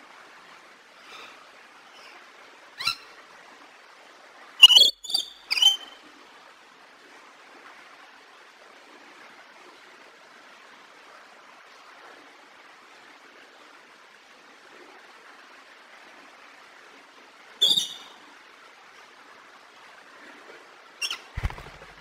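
Rainbow lorikeet giving short, sharp squawks: a single call about three seconds in, a quick run of three around five seconds, another single call near eighteen seconds and a pair near the end, over a steady background hiss.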